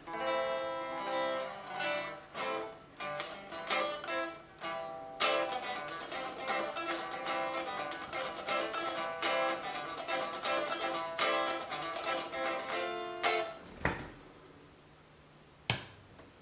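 Guitar played through a Marshall JVM410 valve amp with its volume turned down: picked notes and a few strummed chords, sounding quiet and thin. The playing stops about 13 seconds in, followed by two sharp clicks near the end.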